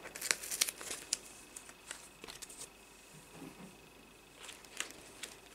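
Faint rustling and crinkling of colouring-book pages being handled, with scattered light clicks and taps, most of them in the first second and again near the end.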